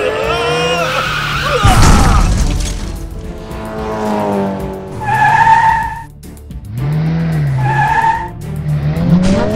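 Cartoon sound effects of a race car: engine and skidding tyres, then a sudden loud crash about two seconds in as it smashes through a wall, with background music running on after.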